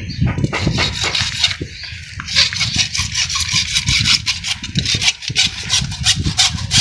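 Rapid rasping strokes of a hand saw cutting through plastic pipe, getting faster and denser about two seconds in.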